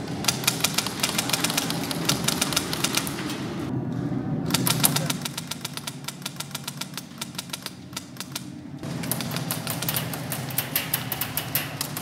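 Airsoft guns firing rapid full-auto strings of sharp clicks, in long runs with short breaks about four seconds in and again near nine seconds.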